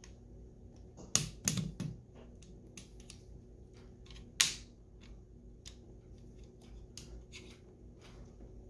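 AR-15 stock and buffer-tube parts clicking and knocking as they are handled and pressed together by hand while a rear QD sling mount is fitted. A quick cluster of knocks comes about a second in, a single sharp click a little before the middle, then lighter ticks.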